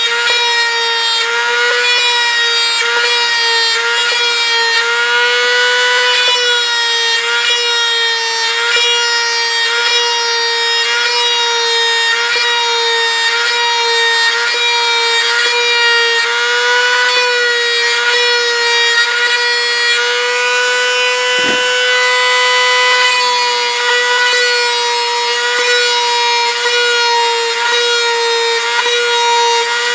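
Dremel rotary tool running at high speed with a brass tube in its chuck, pressed against a model jet's surface to cut rivet rings. It makes a steady high whine whose pitch sags slightly now and then as the tube is pressed in.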